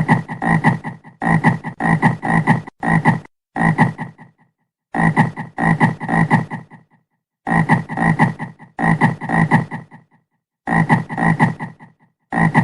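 Frog croaking in runs of rapid pulsed calls, each run lasting about a second, with short pauses between them.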